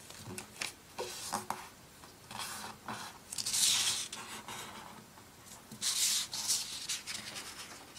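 A sheet of paper rustling and sliding on a table as it is folded corner to centre and creased down with the fingers, with louder swishes about three and a half seconds in and again around six seconds.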